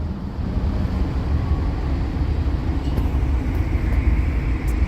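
Cat 308E2 CR mid-size excavator's diesel engine running steadily just after start-up, a low rumble heard from inside the enclosed cab.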